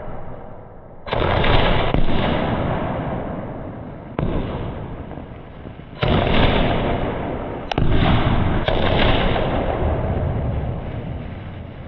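A 60-shot skyshot firework cake firing shell after shell: about six sudden bangs, each trailing off slowly over a second or two before the next.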